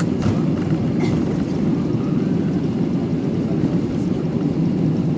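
Cabin noise of an Airbus A320 rolling down the runway after landing: a steady low rumble of the engines and the wheels on the runway, heard through the fuselage.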